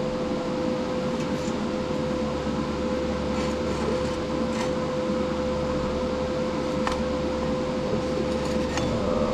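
Steady fan hum with one constant tone, with a few faint clicks and taps now and then.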